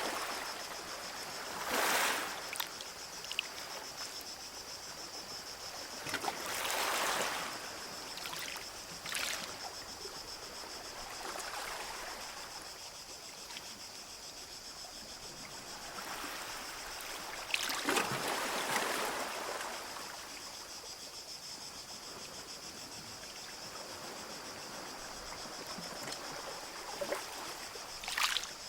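Small sea waves washing onto a beach, swelling and fading irregularly every few seconds, over a steady high-pitched hiss.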